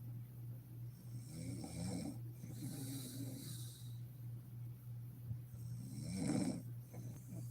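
A sleeping woman snoring, several snores with the loudest about six seconds in, over a steady low hum.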